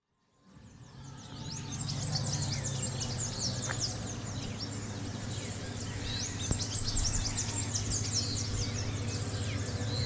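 Many birds chirping over a steady low hum, fading in after about a second of silence.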